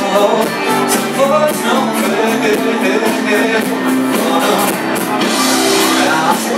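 Live rock band playing a song: sung vocals over guitars and drums.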